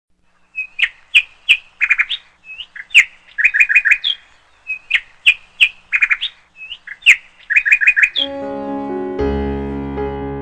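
Bird song: a phrase of sharp, high chirps repeated about every two seconds. About eight seconds in, piano music takes over.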